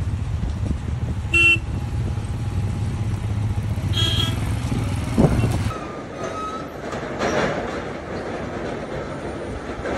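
A vehicle's steady low running rumble with two short horn toots, about a second and a half in and again about four seconds in. Near the middle the low rumble drops away suddenly, leaving a quieter noise.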